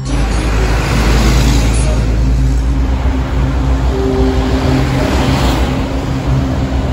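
Heavy vehicle running: a loud, steady rolling rumble with a deep low drone, starting abruptly as the music cuts off.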